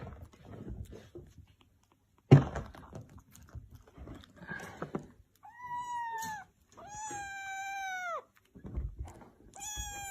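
A loud thump with some scattered knocking, then a cat meowing in three long, drawn-out meows, each about a second long and dropping in pitch at the end.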